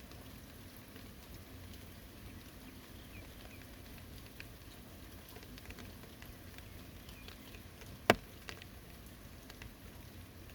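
Rain falling, a soft steady patter with scattered faint drips, and one sharp loud tap about eight seconds in.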